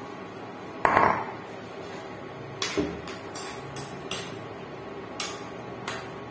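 A ceramic bowl set down on the counter with a thump about a second in, then a spoon stirring chicken in a wok, knocking and scraping against the pan in irregular sharp clinks, over a faint steady hum.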